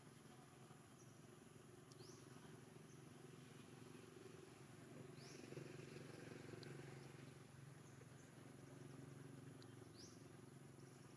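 Near silence: a steady low hum with three faint, short rising chirps a few seconds apart.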